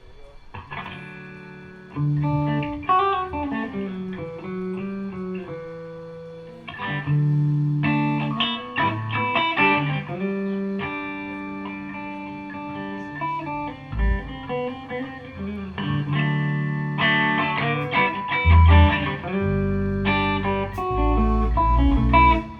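Electric guitar playing picked single-note lines and chords, with deep low bass notes coming in from about 18 seconds in.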